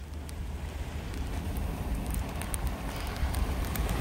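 Storm wind and rain on a moving vehicle, heard from inside: a steady low rumble and hiss with scattered ticks of raindrops on the glass, growing louder.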